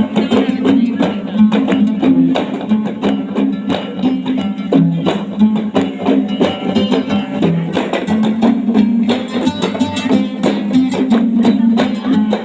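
Gambus, the Arab-Malay plucked lute, playing a traditional Kei tune for Samra dance, with rapid plucked notes in a steady stream.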